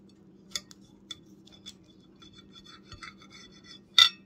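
Serrated bread knife sawing through a sandwich in quick, short scraping strokes, with a few light clicks. Near the end comes a sharp clack, the loudest sound, as the blade knocks against the ceramic plate.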